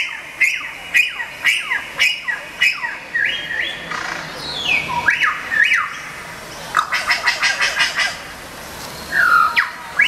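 Recorded bird calls played through handheld portable loudspeakers: a run of sharp falling chirps about twice a second, then sweeping whistled notes, a fast trill later on, and one more falling call near the end.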